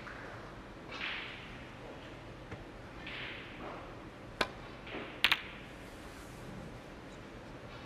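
A snooker cue tip striking the cue ball with a sharp click, then about a second later two quick, louder clicks as the cue ball hits the reds.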